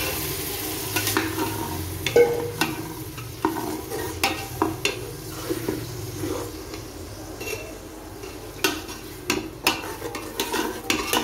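Perforated steel spatula stirring and scraping tomato puree around an aluminium pressure cooker, with a low sizzle from the hot puree underneath. The scrapes and knocks against the pot come irregularly and grow quicker near the end.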